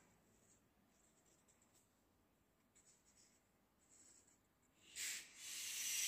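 Drawing strokes on paper: faint short scratches, then much louder, steady scratching from about five seconds in.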